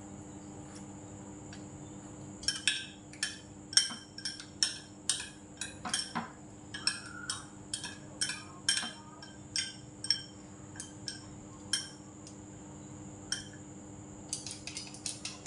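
Chopsticks and a spoon clicking and clinking against dishes and bowls at a meal. There is a long run of quick, irregular taps from about two and a half seconds in, then a short quick cluster near the end.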